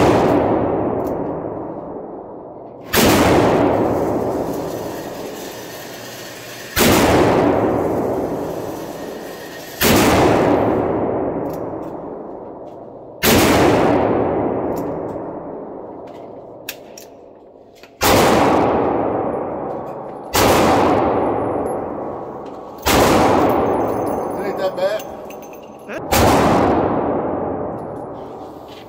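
Taurus .357 Magnum revolver fired in slow single shots, eight in all, a few seconds apart, each shot ringing out in a long echo that dies away before the next.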